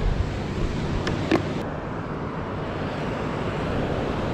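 Surf washing onto the beach with wind rumbling on the microphone, steady throughout; a couple of short clicks a little over a second in.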